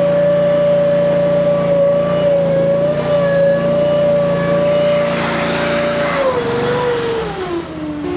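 Derette DRT480 mini skid steer running at high throttle, its Honda GX690 V-twin engine and hydraulically driven angle broom giving a steady whine. A brief hiss comes about five seconds in. About six seconds in the pitch falls as the machine slows down.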